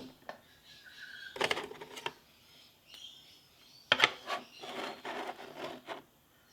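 Lock-picking tools and a lock cylinder being handled and moved aside: sharp metal clicks and knocks, the loudest about four seconds in, then a couple of seconds of rattling and scraping.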